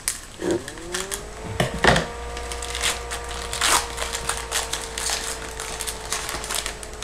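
Trading-card pack wrapper being torn open and crinkled by hand, with irregular crackling and small clicks as the cards are pulled out.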